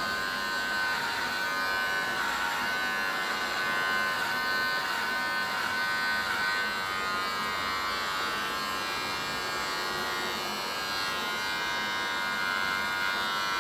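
Electric hair clippers running with a steady buzz while they cut hair down to zero on the back and sides of a head.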